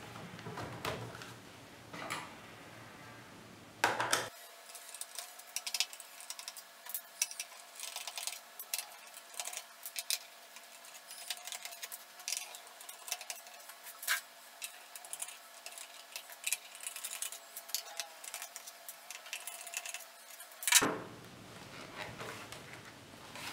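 Screwdriver turning out the small screws of an Asus X441U laptop's plastic bottom cover, with many small clicks and light metallic clinks as the tiny screws are set down. A louder knock about four seconds in, and another near the end as the laptop is turned over onto the desk.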